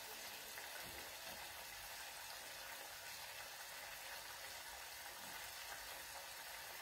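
Faint, steady sizzling of artichoke cream simmering as it reduces in a small saucepan.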